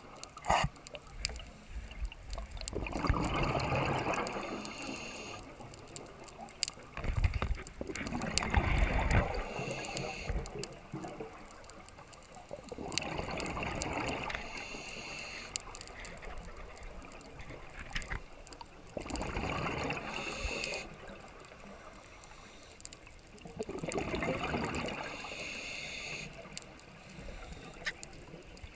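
Scuba diver's breathing through a regulator, heard underwater on a GoPro in its housing: five gurgling rushes of exhaled bubbles, each lasting a couple of seconds and coming about every five and a half seconds, with a short hiss after each.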